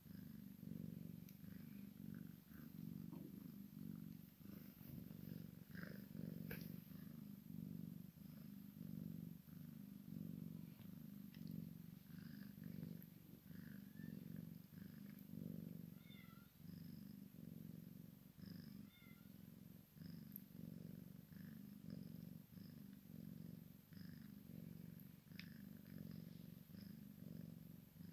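Domestic cat purring softly and continuously, swelling and fading in a steady rhythm.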